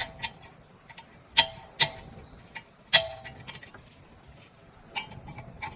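Metal tools clinking on a brake caliper while its guide pins are undone: about five sharp metallic clinks at uneven intervals, some with a short ring, over a faint steady high whine.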